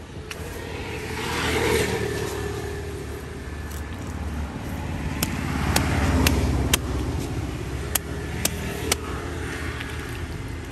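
Road vehicles passing close by, each swelling and fading, around two seconds in and again about six seconds in. In the second half come about seven sharp knocks: a heavy curved knife chopping through a fish steak onto a wooden tree-stump block.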